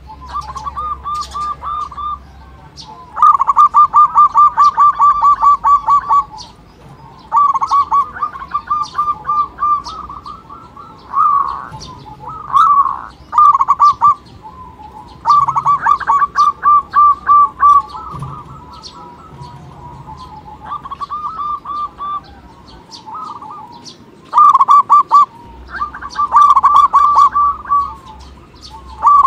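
Zebra doves (perkutut) singing in repeated runs of rapid staccato cooing notes, each run lasting one to three seconds with short pauses between, and faint higher chirps behind.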